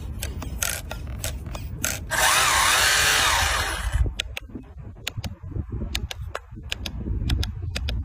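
A remote-control toy car's small electric motor whirring for about two seconds in the middle, its pitch wavering up and down as the wheels spin free in the air. Sharp clicks and ticks come before and after it.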